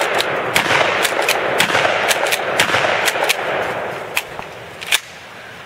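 Mossberg 500 12-gauge pump-action shotgun fired several times in quick succession. The sharp reports ride on a loud noisy wash that dies away after about four seconds, and a last sharp crack comes near the end.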